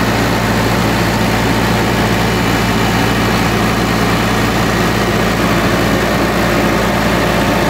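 Diesel engine of a Carrier Ultra XT truck refrigeration unit running steadily, with an even engine note that does not change.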